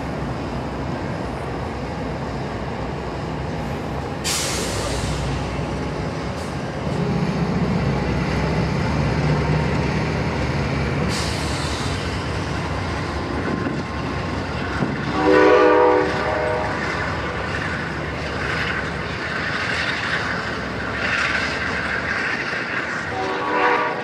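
GE P42DC diesel locomotive's V16 engine running steadily while the train stands at the platform, with two short bursts of air hiss in the first half. About two-thirds through, the locomotive's horn sounds for about a second, and a shorter horn toot comes near the end as the train starts to leave.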